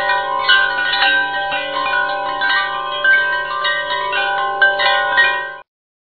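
Background music of chime-like struck bell tones playing a melody, cutting off suddenly near the end.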